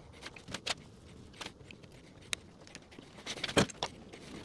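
Scattered sharp clicks and light knocks of hand tools on wood as a broken wooden piece of a couch frame is glued and fixed with one-handed bar clamps. The loudest clicks come about three and a half seconds in, as the clamps are ratcheted tight.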